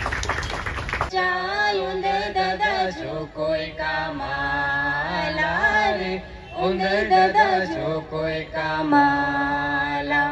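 A solo voice singing an unaccompanied melody with long held notes, after about a second of dense noise at the start.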